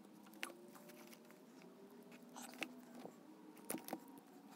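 Faint, scattered crackles and clicks of vinyl electrical tape being pulled off the roll and wound around a wire-nutted splice in a power cord.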